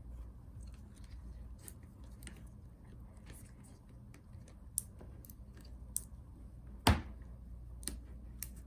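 Fishing line being worked under a laptop battery to cut its adhesive, giving scattered small crackles and clicks with one sharper click about seven seconds in.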